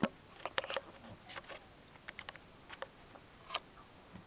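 Young puppies suckling at their mother: a scattering of short wet clicks and smacks, with a quick cluster about half a second in and the last one about three and a half seconds in.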